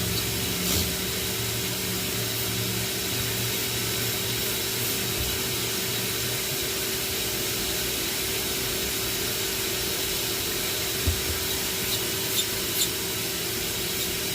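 Steady hissing running noise of a pickup's exhaust system under a leak check, with the engine's low hum fading over the first few seconds. A few light clicks come near the end.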